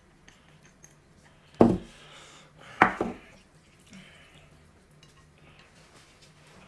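Two sharp clinks of tableware, dishes and utensils knocking together and on the table, about one and a half and three seconds in, the second with a quick double hit. Faint handling noises of bowls and cutlery fill the rest.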